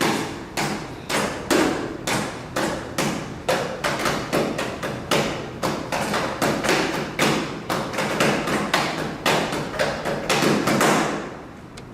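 A rapid series of sharp thumps or knocks, about three to four a second, irregularly spaced. They stop about a second before the end.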